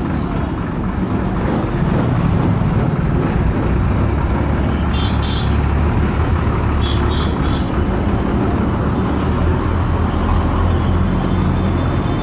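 Diesel engine of a government bus idling close by, a steady low rumble, with the noise of a busy bus stand around it.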